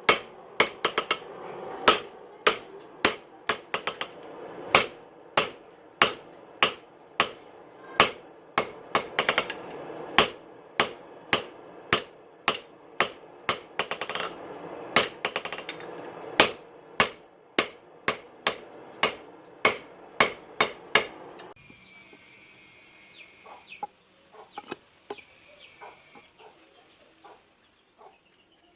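Hand hammer striking steel from a car leaf spring on an anvil, forging a cleaver blank: sharp ringing blows at about two a second, slightly uneven. The blows stop about 21 seconds in, leaving only faint scattered knocks.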